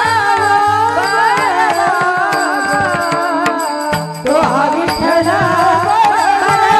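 A woman singing a devotional kirtan melody over steady held accompaniment tones and drum strokes. There is a brief dip just after four seconds before the singing comes back in.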